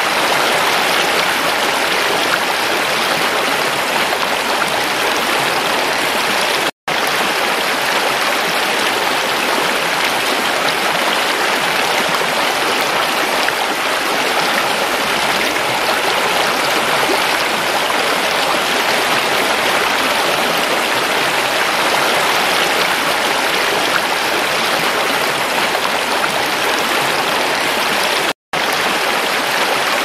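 Shallow, rocky mountain stream rushing and splashing over stones in a steady, unbroken wash of water noise. It cuts out to silence for an instant twice, once about a quarter of the way in and once near the end.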